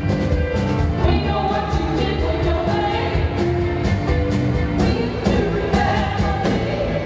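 Live band playing a disco-pop song with a steady drum beat, bass guitar, electric guitar and keyboards, women singing the melody.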